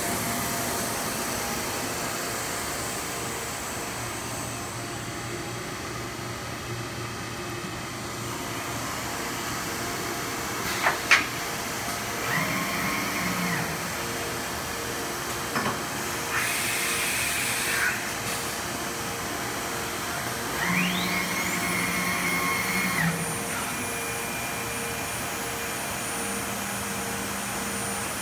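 2015 Weeke Optimat Vantech 480 CNC router running with a steady machine hum. A high spindle whine comes in three times, the last one rising in pitch as it speeds up. There is one sharp knock about a third of the way in.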